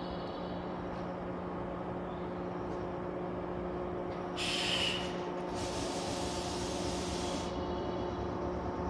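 Stationary electric train humming steadily at the platform, its on-board equipment giving a constant low drone with several fixed tones. About four seconds in comes a short burst of air hissing, then a longer hiss from about six to seven and a half seconds.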